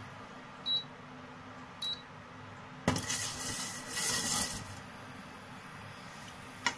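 Two short electronic beeps from an induction cooktop's control panel, about a second apart. Then a sudden click and a brief scraping rustle of about a second and a half, and a single sharp click near the end.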